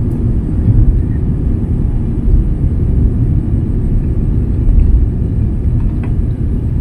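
Steady low rumble of a Boeing 787-10 airliner's jet engines and rushing air, heard from inside the cabin during the climb after takeoff.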